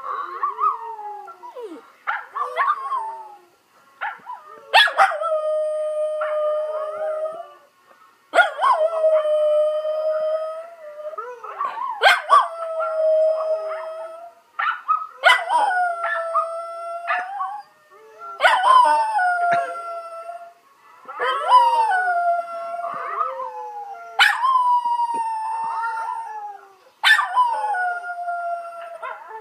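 A dog howling along with a recording of her own howling played from a laptop's speaker: about ten long howls, one every two to three seconds. Each starts with a sharp, often falling note and settles into a held tone, and the voices sometimes overlap.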